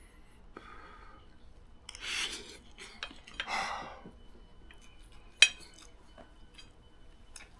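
A spoon scooping fried rice off a plate: two short scrapes, then one sharp clink about five and a half seconds in.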